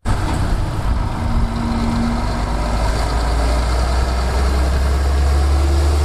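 Scania heavy wrecker tow truck's diesel engine running as the truck drives, a low, steady rumble.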